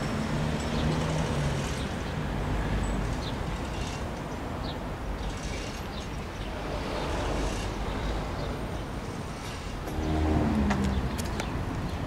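Outdoor traffic noise: a steady low engine rumble, with a louder engine note that falls in pitch about ten seconds in as a vehicle passes.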